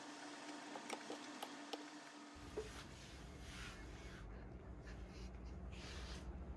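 A few faint clinks of a metal fork against a ceramic salad bowl. About two seconds in, the sound changes to a low rumble with soft rustling swishes.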